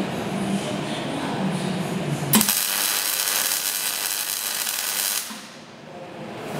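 MIG welding arc on a steel tube frame: it strikes abruptly a little over two seconds in, crackles steadily for about three seconds, then cuts off. Before it there is a steady rumbling noise.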